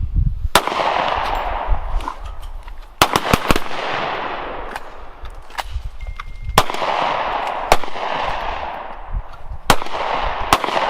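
A string of gunshots outdoors, about eight in all at uneven spacing, the four loudest coming roughly every three seconds. Each loud shot is followed by a long echo that trails off over a second or two.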